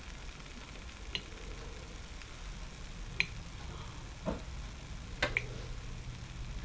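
About five faint, sharp ticks at irregular intervals from hot bear-fat cracklings draining in a mesh strainer over a glass jar, as the last fat drips through.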